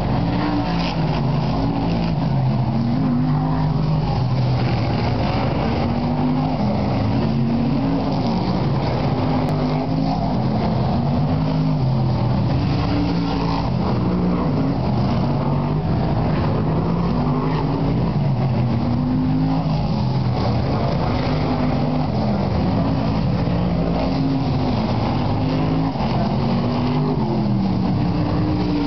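A pack of BriSCA F1 stock cars racing round the oval. Their big V8 engines keep rising and falling in pitch as the cars accelerate and lift lap after lap.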